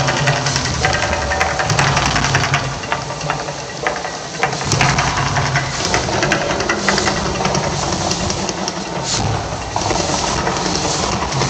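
Mirage volcano show erupting: a deep, pulsing rumble with crackling and hissing as steam and gas flames shoot up from the lagoon.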